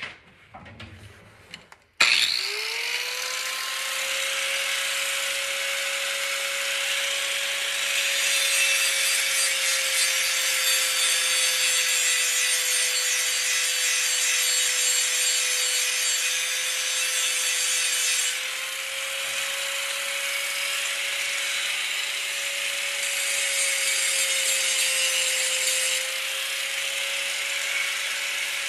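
Angle grinder spinning up about two seconds in, then running steadily with its disc grinding the steel edge of a lawn mower blade to sharpen it. The grinding gets louder as the disc bears down on the blade, eases off for a few seconds, then gets louder again. A few light knocks come before the grinder starts.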